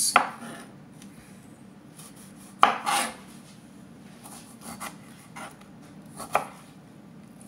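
Kitchen knife cutting the ends off a lime and knocking on a cutting board: several separate sharp knocks, the loudest about two and a half seconds in.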